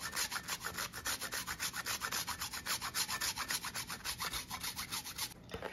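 A wedge of Parmesan cheese grated on a flat handheld metal grater: quick, even scraping strokes, about six a second, stopping just before the end.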